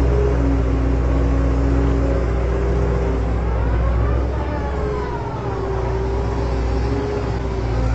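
Small electric motors of a toy RC excavator whining as it drives on its tracks and turns, the pitch rising and falling several times from about three seconds in, over a steady low hum.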